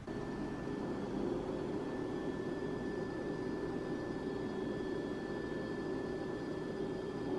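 Steady ambient rumble with a faint, even high whine running through it: the background hum of a kitchen, with no distinct events.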